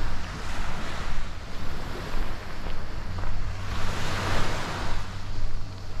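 Sea waves washing onto the beach, one wave swelling up and falling away about four seconds in, with wind buffeting the microphone as a low rumble.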